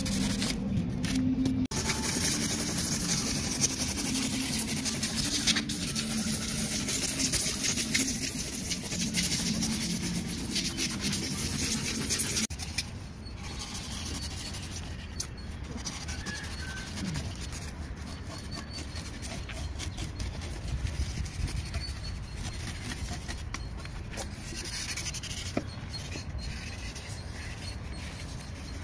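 Polystyrene foam block being scraped and carved by hand: a dense, scratchy rubbing that goes on throughout and drops suddenly in level about twelve seconds in.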